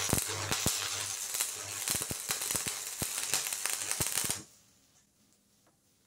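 Stick-welding arc crackling and sputtering as an electrode burns against a steel plate, with a low buzz under it in the first couple of seconds. The arc breaks about four and a half seconds in and the sound stops suddenly.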